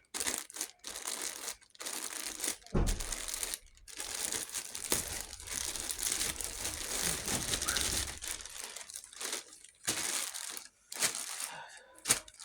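Crinkling and crumpling, coming in irregular bursts with short gaps between them.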